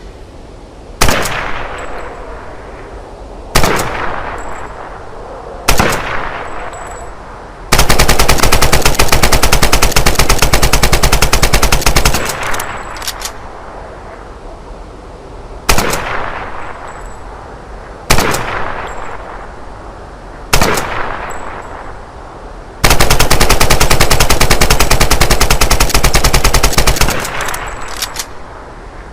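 AK-47 assault rifle (7.62×39 mm) firing: three single shots, each followed by an echoing tail, then a full-auto burst of about four seconds. The same pattern then repeats: three single shots and another long burst.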